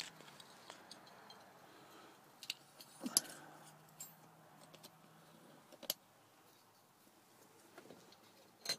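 Scattered sharp clicks and light metallic clinks of a Torx driver and small steering-column parts being handled, with a few louder knocks about three seconds in, near six seconds and near the end.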